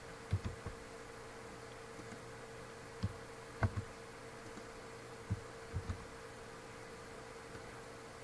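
Steady low electrical hum of room tone, broken by about eight short soft clicks at irregular intervals, such as computer mouse clicks while editing on screen.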